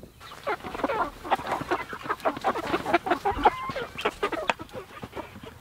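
A flock of meat chickens clucking close by, many short calls overlapping one another without a break.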